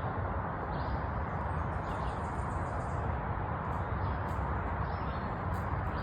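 Birds chirping faintly and intermittently over a steady rushing background noise.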